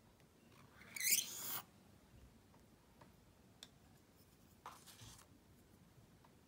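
Calligraphy pen scratching across paper, two short strokes: a louder one about a second in and a shorter one near five seconds, with a few faint ticks between.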